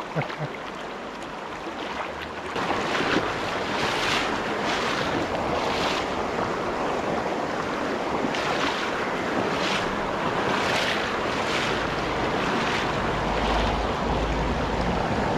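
Rushing water of a rocky freestone trout stream running over shallow riffles: a steady hiss of white water, louder after the first couple of seconds, with short hissing swishes about once a second. Some wind rumbles on the microphone near the end.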